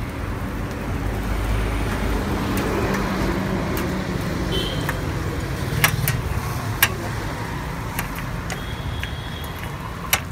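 Steady rumble of street traffic. Over it come a few sharp metallic clinks, about six seconds in and again near the end, as metal skewers knock on a steel tabletop while a roast chicken is pulled off them.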